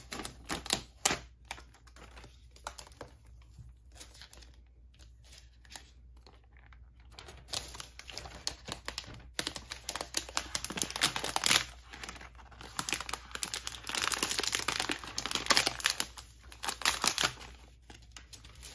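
Thin plastic protective film being peeled off a new iPad, crinkling and crackling. The crackle comes in scattered bursts for the first few seconds and grows dense and continuous in the second half.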